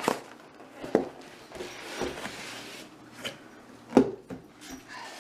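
Cardboard shipping box being handled and tipped to slide out a styrofoam cooler: rustling and scraping with a knock about once a second. The loudest thump comes about four seconds in, as the cooler lands on the table.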